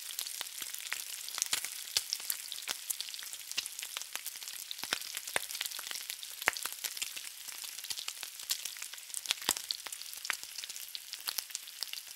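Bacon frying in a pan: a steady hiss with frequent sharp, irregular pops and crackles of spitting fat.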